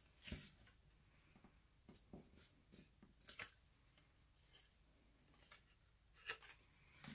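Faint rustles and light taps of cardstock being handled, folded and pressed together as a glued paper box is assembled: a handful of short, separate sounds, the loudest just after the start.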